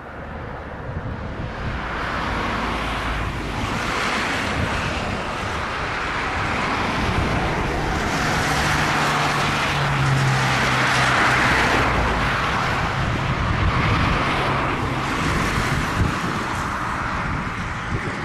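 Airliner's jet engines passing on a crosswind landing, the noise swelling to a peak about halfway through and easing off, with a steady low hum near the loudest part. Gusty wind buffets the microphone throughout.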